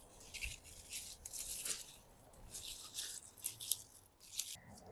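Beetroot leaves and stalks rustling and tearing as beets are pulled from the bed and handled: a run of short, irregular scratchy rustles.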